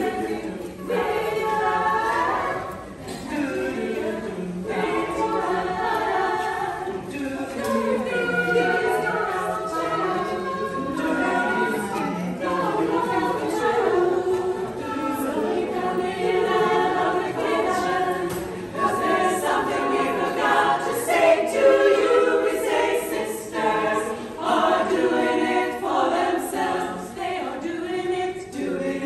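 A women's show chorus singing a cappella in several-part harmony, with no instruments.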